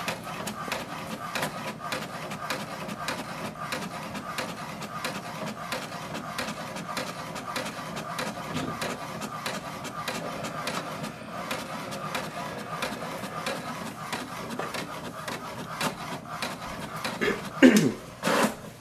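HP DeskJet 2842e inkjet all-in-one printing a copy: the print carriage and paper-feed motor whirr steadily with rapid clicking as the page is printed. A few louder whirrs that fall in pitch come near the end as the page is fed out.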